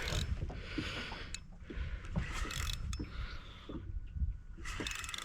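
Fishing gear being handled on a small boat: a series of short rustles and clicks over a constant low rumble of wind and water.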